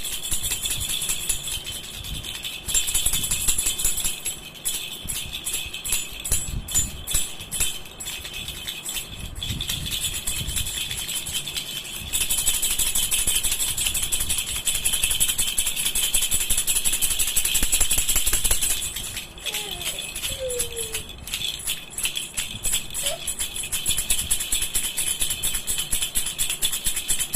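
Baby rattle (jhunjhuna) shaken over and over, its beads rattling with a jingling ring. The shaking comes in uneven bursts and turns into a steady, faster shake in the middle. A few brief squeaks near the end.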